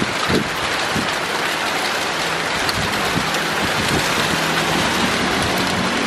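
Heavy rain pouring onto a wet road and a plastic tarpaulin, a dense steady hiss with a few low thumps near the start.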